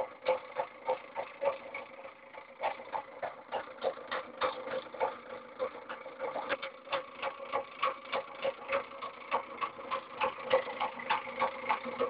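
Reed-switch magnet motor running: a fast, even clicking at about three to four clicks a second over a steady hum.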